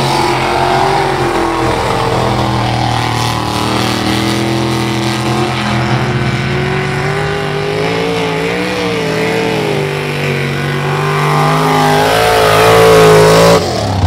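Mud-racing pickup truck engine running hard at full throttle, its pitch wavering up and down as the tires churn through the dirt and mud, climbing near the end and then breaking off suddenly.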